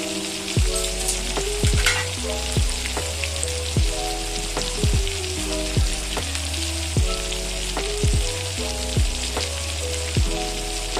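Chicken wings deep-frying in hot oil, a steady sizzle throughout, under background music with a bass line and a kick drum about once a second.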